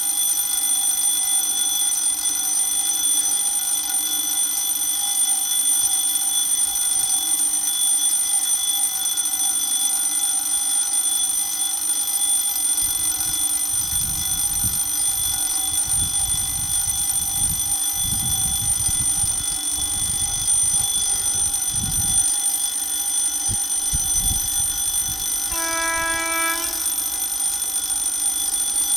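Level-crossing warning bell ringing steadily as the crossing signals flash. About 26 s in, the approaching locomotive's horn sounds once, briefly, for about a second.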